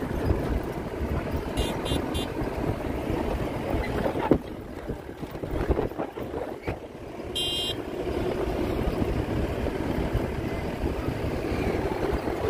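Jeep engine running as the jeep drives over sand dunes, under heavy wind buffeting on the microphone. There is a sharp jolt about four seconds in, and short high beeps come twice, a triple pip near two seconds and a single longer one near seven and a half seconds.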